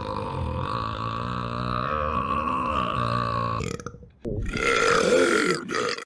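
A long, deep belch held at a low pitch for nearly four seconds. After a short break comes a second, rougher belch lasting about a second and a half.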